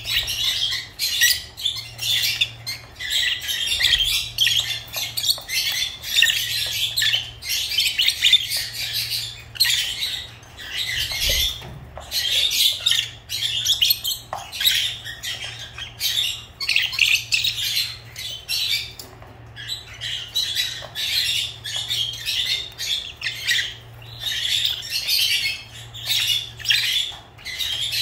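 Lovebirds chattering: a rapid, almost unbroken stream of shrill chirps and squawks, with only brief pauses.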